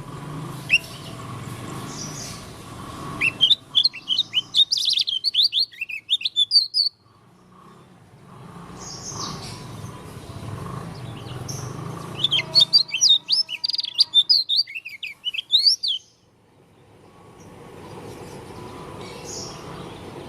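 Yellow-breasted white-eye (Lombok 'pleci dakun') singing in two bouts of rapid, high twittering notes, each lasting about four seconds, over a steady low background noise.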